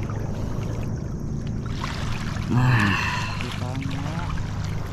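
Water sloshing and swishing around people wading waist-deep, with a brief call a little past halfway.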